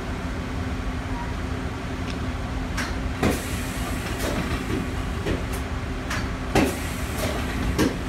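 Ae 6/6 electric locomotive creeping up to a passenger coach, its electrical equipment humming steadily, with several short squeaks and knocks from about three seconds in as it closes on the coach's buffers.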